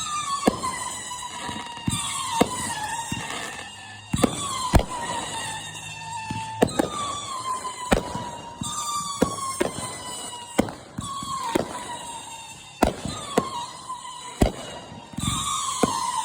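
Fireworks going off in a rapid series: shrill whistles, each a high tone sliding slowly down for a couple of seconds and then starting again, mixed with about a dozen sharp bangs and pops.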